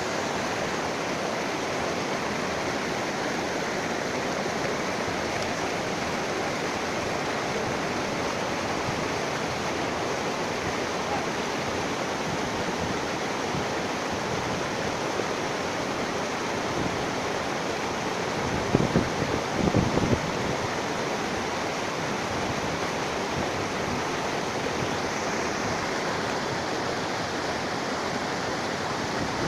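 Waterfall's steady rush of falling water. About two-thirds of the way in there is a brief cluster of low thumps.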